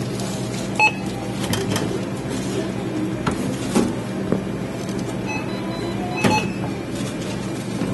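Supermarket checkout lane: groceries knocking down onto a moving conveyor belt, with a few short high beeps near the start and again about six seconds in, over a steady hum.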